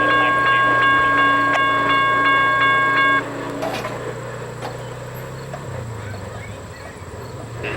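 Air horn of a GE P42DC passenger locomotive sounding a steady multi-note chord, cutting off sharply about three seconds in. The rumble of the passing train and the regular clicking of its wheels carry on after it, fading slightly.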